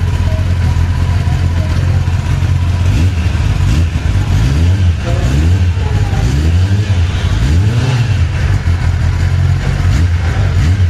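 2021 Kawasaki Ninja ZX-10R's inline-four engine running through its stock exhaust. It idles, is blipped up and down in a string of short revs through the middle, and settles back to idle.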